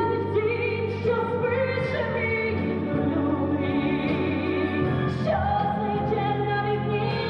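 Slow pop ballad music: long held melody notes over sustained backing, with wordless singing.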